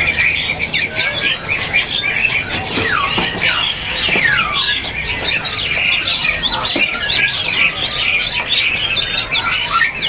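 Many caged songbirds chirping and calling at once: dense overlapping twittering, with a few downward-sliding whistles a few seconds in.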